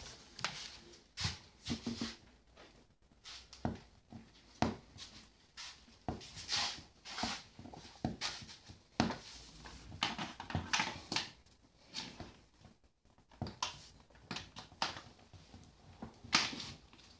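Irregular knocks, clicks and rustling of things being handled and moved about, with short quiet gaps between them.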